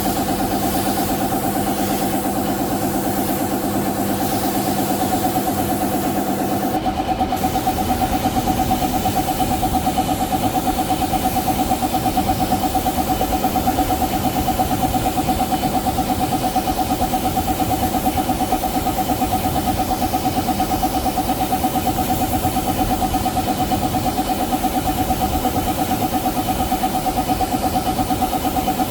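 A motor or engine running steadily with a fast, even pulse. About seven seconds in its tone changes and it gets a little louder.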